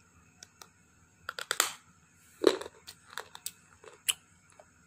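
Soft white slate stone being bitten and chewed: a run of crisp crunches, the loudest about two and a half seconds in, with smaller ones after it.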